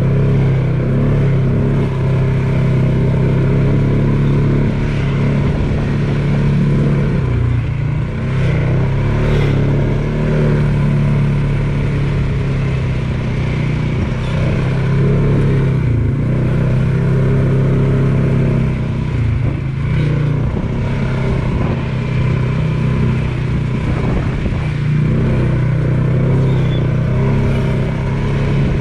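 ATV engine running steadily under way on a trail, its pitch easing briefly a couple of times.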